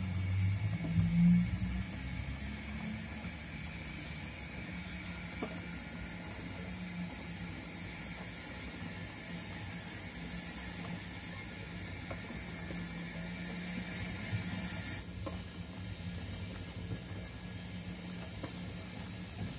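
O gauge model goods train running slowly on the layout: a steady low motor hum and the rolling of wagon wheels on the track, with a few faint clicks.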